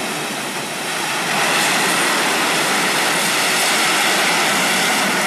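Loud, steady rushing of water with no deep rumble underneath, swelling slightly about a second in.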